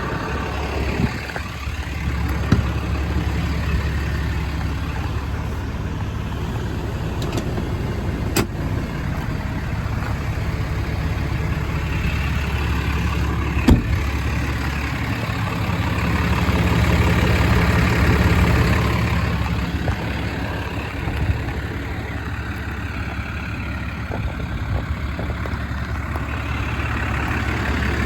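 6.7-litre Cummins diesel of a 2012 Ram 5500 idling steadily, with two sharp clicks and a brief swell in the sound about two-thirds of the way through.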